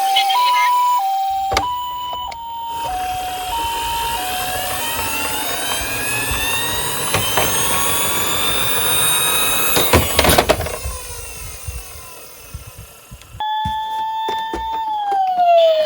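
Toy emergency-vehicle minicars' electronic sirens: two alternating tones at first, then the rolling rumble of the toy cars on the slope with a rising whine. A short clatter comes about ten seconds in, and near the end another siren starts a falling and rising wail.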